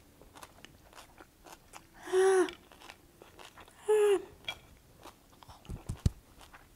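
A woman chewing with faint clicks, breaking off twice with short, loud voiced sounds from her throat as the red pepper flakes burn her mouth; a few low thumps near the end.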